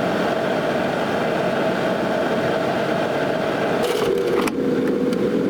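Air fryer running, its fan giving a steady hum. A short, brighter noise cuts in about four seconds in.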